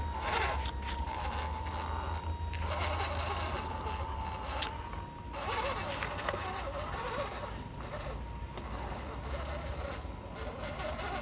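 Electric motors and gearboxes of small RC crawler trucks whining as they crawl over dirt and rocks, with a steady high whine throughout.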